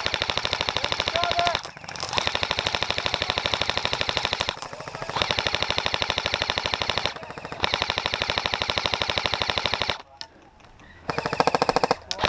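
Airsoft gun firing on full auto: long, rapid, evenly spaced bursts of about two seconds each, with brief pauses between them.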